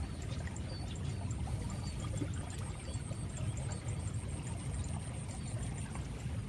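Irrigation channel water flowing steadily, a constant rushing without breaks.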